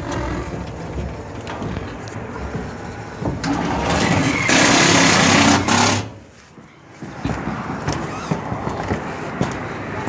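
Rushing air over the microphone, swelling into a loud blast about four seconds in that cuts off suddenly near six seconds, then picks up again more quietly.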